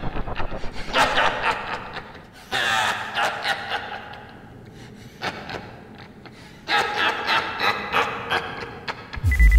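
A man laughing in several separate bursts, with pauses between them. A low rumble starts just before the end.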